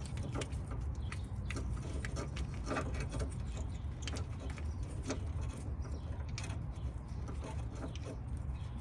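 Faint, scattered small clicks and taps of the new VTM sensor being handled and started by hand into the differential case, over a steady low rumble.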